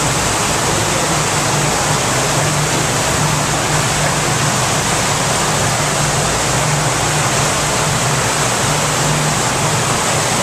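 Steady rushing of water in a beaver's aquarium exhibit, with a low hum beneath it.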